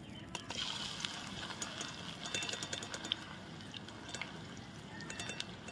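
Hot oil sizzling and crackling in a kadai around a wire-mesh strainer of freshly fried shredded potato as it is lifted out of the oil.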